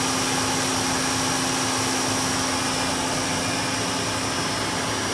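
A pump running steadily on a pressurised water line: an even hiss with a constant low hum.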